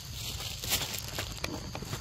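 Forest ambience: a steady high insect drone over a low rumble, with a few short rustles and soft steps in the leaf litter, the loudest about three-quarters of a second in.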